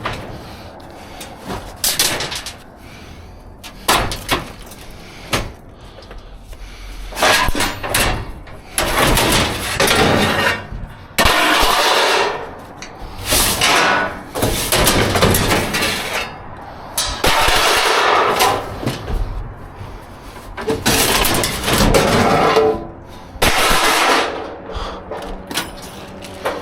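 Junk and scrap being rummaged through and tossed about in a dumpster: irregular clanks, knocks and rattling, some sharp hits and some longer scraping clatters.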